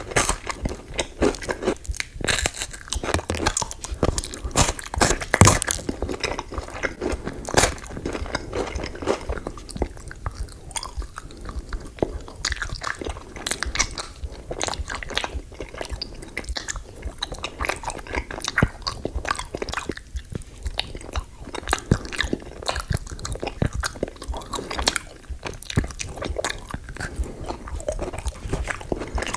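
Close-miked eating: crunchy sweets being bitten and chewed, a dense run of crisp crackles and crunches.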